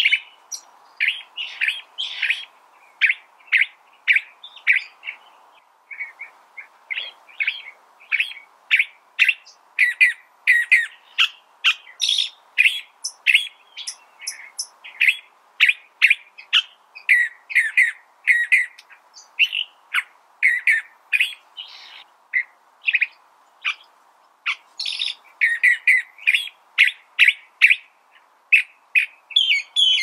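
California thrasher singing: a long, unbroken run of short, varied notes, about two or three a second.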